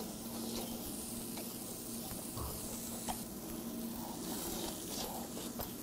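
Close-up eating sounds: chewing and slurping seasoned green onion strands, with small wet mouth clicks, over a steady hiss and a faint low hum.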